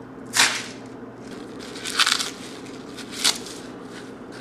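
Fresh curly kale leaves crumpled by hand and pushed down into a blender jar, giving three short crisp crunches about a second and a half apart, over a steady low hum.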